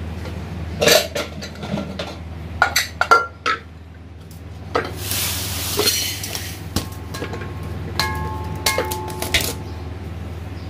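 An aluminium pressure cooker and other metal pots being handled: a run of clanks and clinks, a rushing hiss in the middle, then ringing metal strikes near the end. A steady low hum runs underneath.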